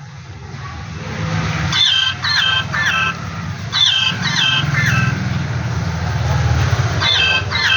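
Hen clucking in short calls, in quick runs of three about half a second apart, over a steady low rumble.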